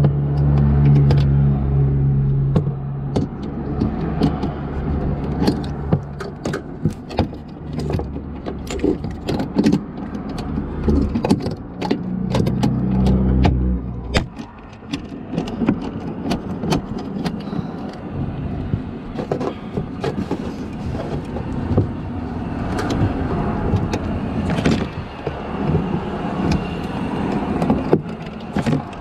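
Irregular metallic clicks and knocks of a ratchet and 10 mm socket being worked on a hard-to-reach headlight bolt, over a low rumble that swells near the start and again about halfway through.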